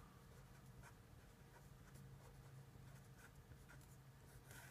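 Faint scratching strokes of a felt-tip marker writing on paper, over a low steady hum.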